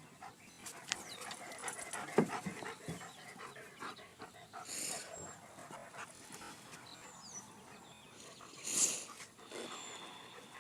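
Dogs panting and moving about, with scattered small clicks and two short bursts of noise about five and nine seconds in.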